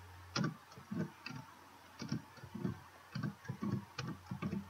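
Computer keyboard keys and mouse buttons clicking, a few irregular clicks a second, over a faint low hum.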